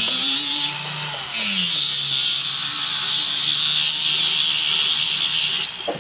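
Flex shaft rotary tool spinning a sanding disc against a gold pendant: a loud sanding hiss with the motor's hum beneath. The hiss drops out briefly about a second in and returns until near the end, while the motor's pitch slides up and down as its speed changes.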